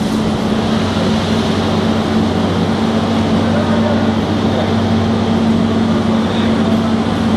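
CAT 320C excavator's diesel engine and hydraulics running with a steady, even hum. The hydraulic breaker is not striking while the boom moves it across the concrete stair slab.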